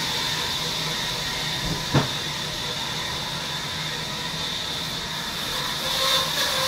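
Steady machinery noise in a sawmill: a constant hiss with a high whine and a low hum, and a single sharp knock about two seconds in.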